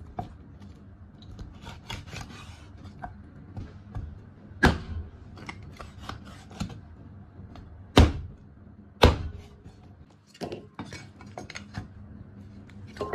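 A cleaver chopping pig's trotters on a thick wooden chopping block. There are three heavy chops, about halfway through and then twice close together later on, with lighter knocks and scraping of the blade and pieces on the wood in between.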